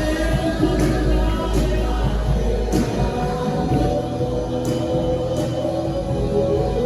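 Music with voices singing together over instruments and percussion, in the manner of a gospel song.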